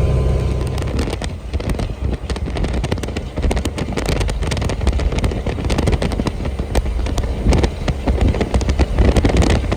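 Truck engine running with a low rumble, overlaid by dense, irregular crackling clicks.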